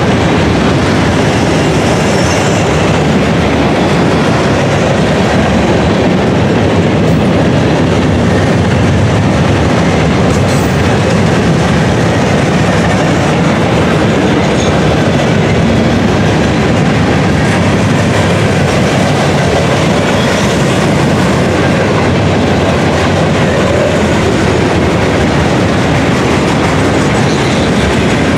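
Freight train of gondola cars rolling past close by: a steady, loud rumble and clatter of steel wheels on the rails that holds unbroken throughout.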